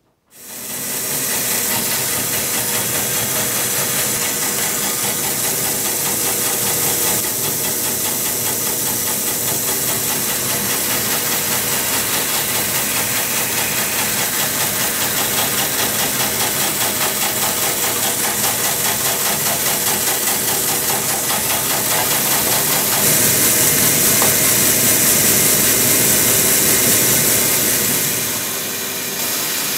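A bandsaw cutting lengthwise through a half-round log of Dutch elm: a steady sawing noise with the motor running under load, starting abruptly just after the start. It grows louder for a few seconds past the two-thirds mark and eases off near the end.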